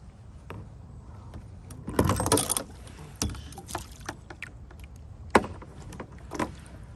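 Handling noise as a white bass is unhooked by hand in a kayak: a loud scuffle about two seconds in, then scattered clicks and knocks, with one sharp knock a little past five seconds.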